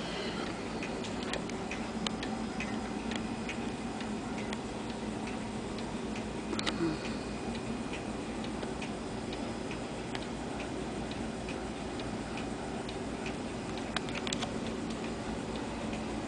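Clockwork movement of a carved wooden Black Forest church clock ticking steadily over a steady low hum, with a couple of louder clicks about seven and fourteen seconds in.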